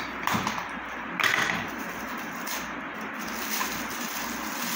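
Shiny foil gift wrap crinkling and tearing as a small gift box is unwrapped by hand, with two louder crackles about a quarter second and a second in.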